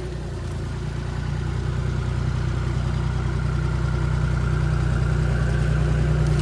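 Road roller's engine running steadily with a low hum, growing gradually louder.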